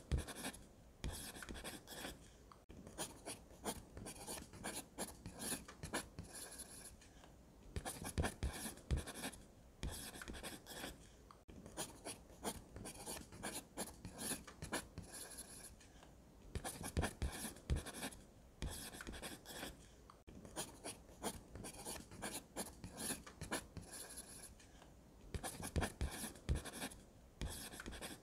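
Pencil scratching on drawing paper, in runs of short strokes separated by brief pauses, as lines are sketched.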